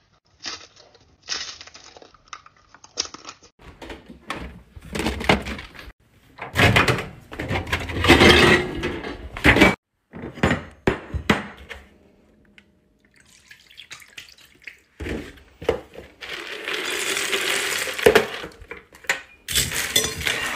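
Kitchen clatter: a ceramic bowl and a metal fork knocking and clinking on a counter, with dry cereal pouring and scattering. It opens with a run of sharp knocks and clinks, then longer stretches of dense rattling.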